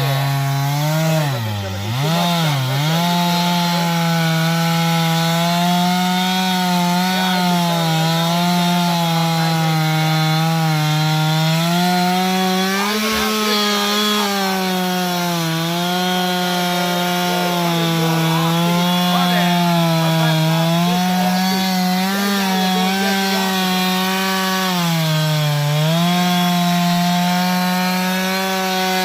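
Chainsaw on an Alaskan sawmill ripping lengthwise through a pine log, its engine running steadily under load. The pitch dips briefly twice near the start and once near the end as the chain loads up in the cut.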